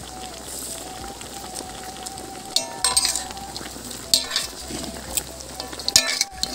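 Chicken pieces sizzling in a hot wok, with a steady hiss, while a spatula stirs and scrapes them. Clattering strokes come about two and a half seconds in, again around four seconds, and near six seconds.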